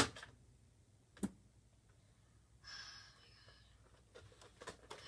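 A foam-dart blaster fires with a single sharp pop, followed about a second later by a quieter click, then a brief rustle.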